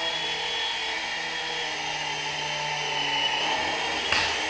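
Small coaxial RC helicopter (F1 series F103) hovering: its electric motors and counter-rotating rotors whine steadily, the pitch drifting a little with throttle, with a brief knock about four seconds in.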